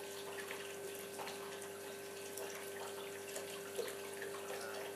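Faint, wet sizzling and stirring as yogurt-marinated chicken pieces cook in a non-stick pan, with scattered small crackles over a steady faint hum.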